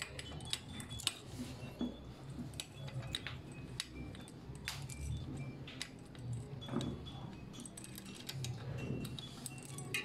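Light, scattered metallic clicks and clinks as the small metal hardware of a bike rack's support strut (threaded bolt, nut, washers and clamp bracket) is handled and fitted by hand against the bicycle frame.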